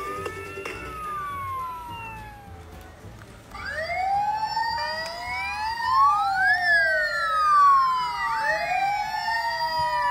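Electronic siren sounds from battery-powered toy emergency vehicles. One wail rises and falls over the first couple of seconds; after a short lull, several toy sirens at different pitches wail together, rising and falling over one another.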